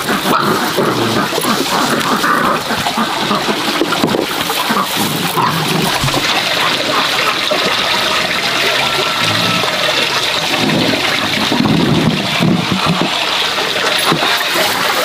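Steady rushing noise like running water, with occasional sounds from dogs and puppies.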